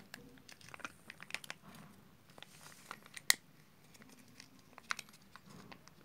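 Whiskas foil cat-food pouch crinkling as it is squeezed and handled, with many short sharp crackles and clicks, the loudest a little past three seconds in.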